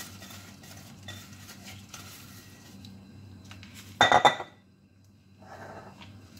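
Metal utensil scraping and clinking against a ceramic mixing bowl while stirring flour and liquid yeast into pizza dough, with one loud clatter about four seconds in.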